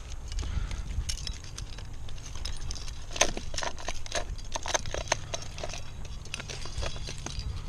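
Metal climbing gear clinking and rattling: carabiners, quickdraws and cams on a climber's harness knocking together as he moves and clips the rope. It is a run of sharp clicks, busiest from about three seconds in, over a steady low rumble.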